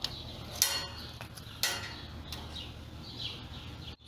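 Hands handling small replacement grill parts: soft rustling with two sharp clicks about a second apart, over a steady low hum.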